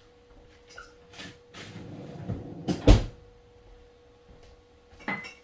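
Handling noises on a wooden kitchen table: scattered clicks and rustling, with one louder thump about three seconds in, over a faint steady hum.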